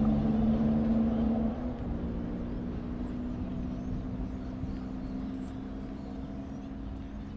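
Steady engine hum with a low rumble, louder for the first second and a half and then settling a little lower and even.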